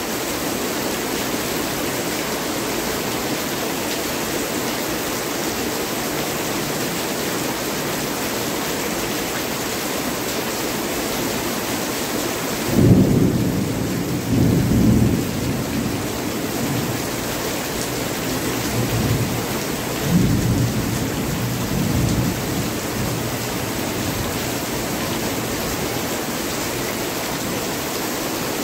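Heavy rain falling steadily, with rolling thunder breaking in suddenly about halfway through and rumbling for a few seconds, then a second, weaker roll of thunder several seconds later.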